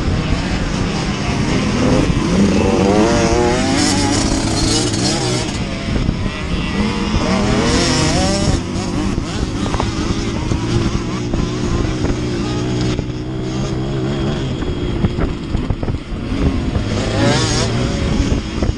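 Dirt bike engines running hard in a pack, the nearest bike loudest, its pitch rising and falling repeatedly as the throttle is worked.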